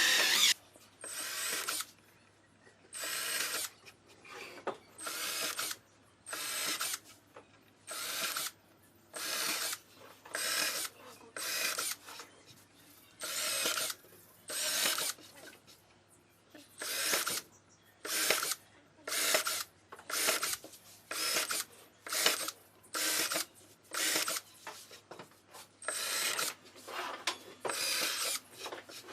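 A hand tool scraping along wood in repeated strokes: about twenty rough, hissy passes of about half a second to a second each, with short pauses between them.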